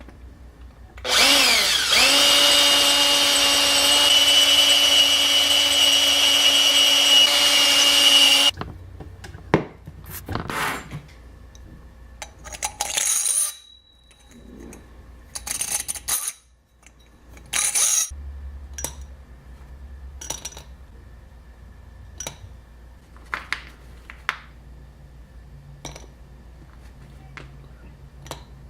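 Electric drill motor spinning up and running steadily for about seven seconds while working a brass sleeve piece, then stopping suddenly. Scattered knocks and clicks of metal parts being handled follow.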